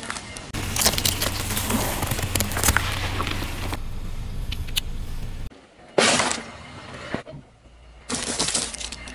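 A car tyre rolling slowly over sweets and squishy toys and crushing them, with crackling and crunching over a low engine hum. The sound cuts abruptly between short clips, with one loud sudden sound about six seconds in.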